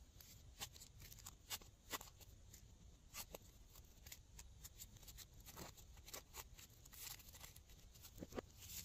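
Faint, irregular clicks and crinkles of small foam and glitter craft cutouts and confetti being handled and dropped into a glass dish of white glue.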